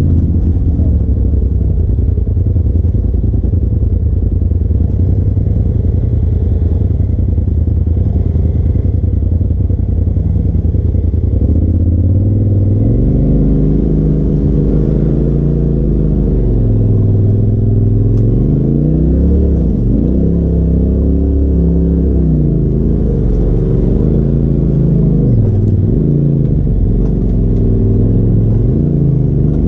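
Polaris RZR side-by-side's engine heard from inside the cab while crawling a rough dirt trail: a steady low drone for the first ten seconds or so, then revving up and easing off again and again as the throttle is worked over the bumps.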